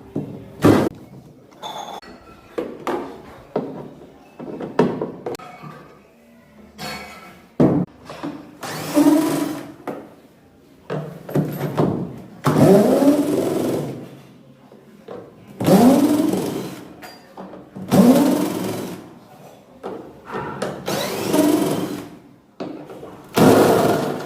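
Motor whirring in repeated short bursts that each rise in pitch, about six of them every two to three seconds in the second half, after a run of knocks and clicks; in a washing machine with a newly replaced drum this is typical of the drum being turned in starts and stops.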